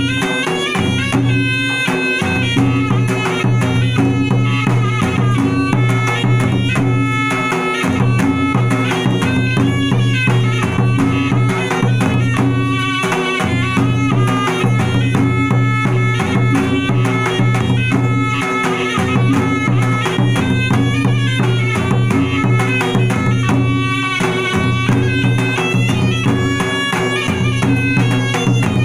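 Malay traditional gendang ensemble playing: a serunai, a double-reed oboe, carries a continuous reedy melody over fast interlocking stick strokes on two double-headed gendang barrel drums, with a hanging gong humming low underneath.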